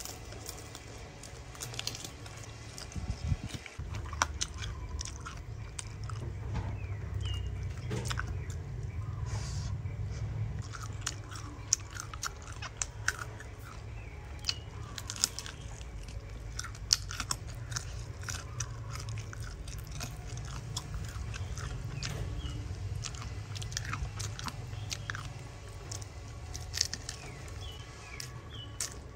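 Close-miked eating: a person biting and chewing grilled chicken feet, with frequent sharp crunches over a continuous low chewing sound.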